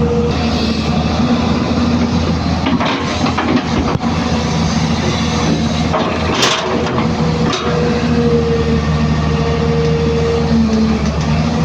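Hyundai 215 hydraulic excavator's diesel engine running steadily under load, with a steady hum that drops away and comes back. A few knocks, and a brief scraping rattle about six and a half seconds in.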